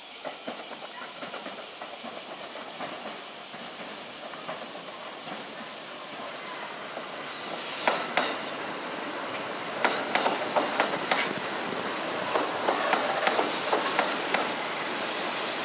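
Kintetsu red-and-white electric commuter train approaching over junction points and running past close by, its sound building up as it nears. There is a brief hiss about eight seconds in, then a run of clicks as the wheels cross rail joints and points.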